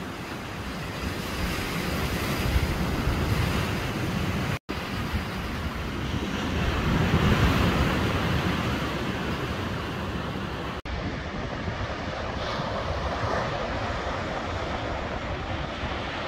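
Ocean waves and surf washing, with wind rumbling on the microphone. The sound drops out for an instant twice, about four and a half and eleven seconds in.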